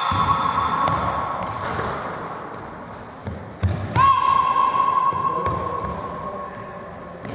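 A basketball bouncing and feet running on a sports hall floor, with thumps echoing in the hall. About four seconds in, a long, steady, high-pitched tone starts and fades away over about three seconds.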